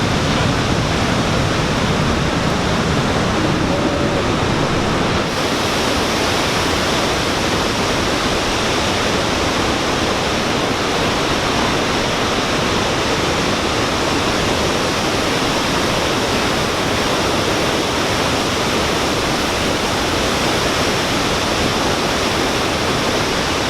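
Victoria Falls' huge curtain of water crashing into the gorge: a loud, steady rush of falling water and spray. About five seconds in the sound shifts slightly, with more high hiss and less low rumble.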